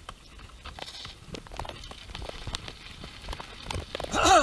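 Mountain bike rolling over a rough dirt trail: irregular crunching, clicking and knocking from the tyres and bike, growing louder. A brief falling-pitched cry comes near the end.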